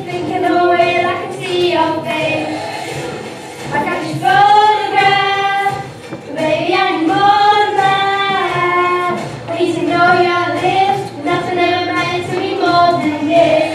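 A group of young girls singing together into handheld microphones, amplified through a PA, with several long held notes.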